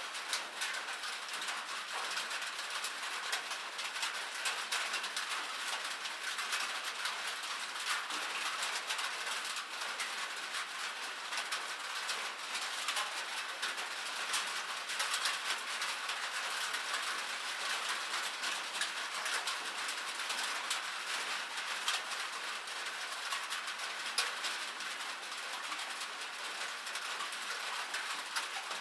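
Light rain falling steadily: an even hiss of many small drops pattering and ticking, with no let-up.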